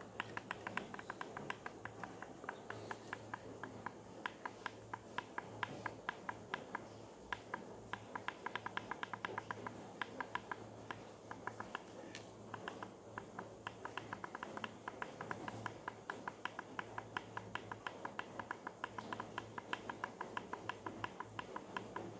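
A quick, uneven run of small clicks from the push-buttons of a W3230 digital temperature controller being pressed over and over to step a setting down, over a faint low hum.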